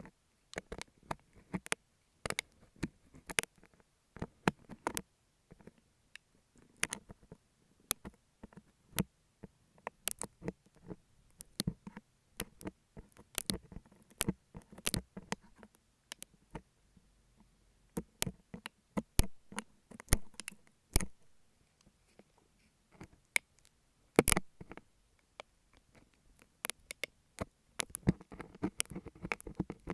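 Cutter knife cutting and scraping a beeswax sheet right at an earphone microphone: a dense, irregular run of sharp clicks and crackles with short pauses between them.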